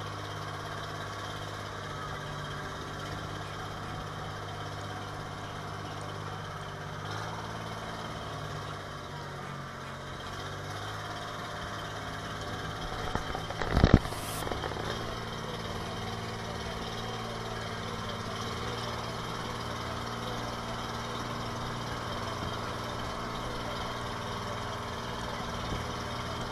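Outrigger boat's engine running steadily, its speed shifting slightly a few times, with a single sharp loud thump about halfway through.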